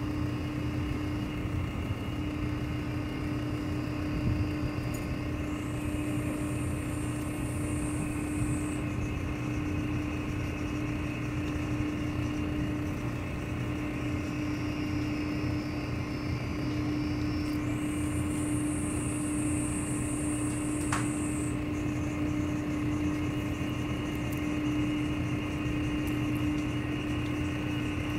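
Steady mechanical hum of a machine or engine running without change, one low tone held throughout. A high buzz comes in twice, about five seconds in and again near eighteen seconds, each lasting about four seconds.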